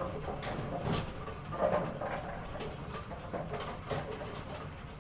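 Bowling pins clattering and knocking together, many irregular sharp knocks over a steady low rolling rumble, as in a bowling alley.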